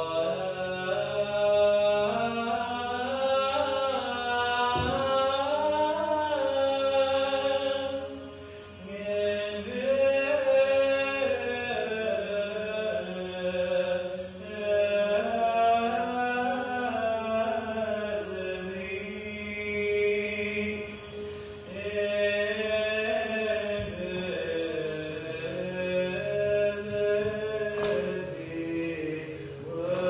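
Sung vocal chant: voices hold long notes and move slowly from pitch to pitch in long phrases, pausing briefly about every six to seven seconds.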